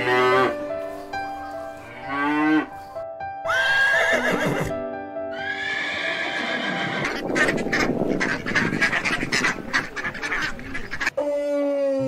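A cow mooing, then, about halfway through, a horse whinnying in one long, quavering call, over background music.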